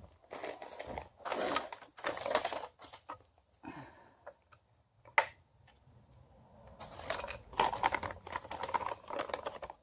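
Irregular rustling and clicking of hands handling small parts and their packaging, with one sharp click about five seconds in.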